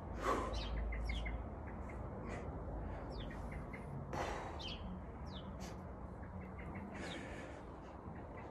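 Small birds chirping in the background, many short, quick high notes throughout. A person breathes out hard three times, about a second, four seconds and seven seconds in, with the effort of doing ab crunches.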